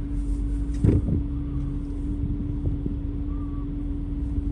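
Car driving, heard from inside the cabin: a steady low rumble of road and engine noise with a constant hum. A single short thump comes about a second in.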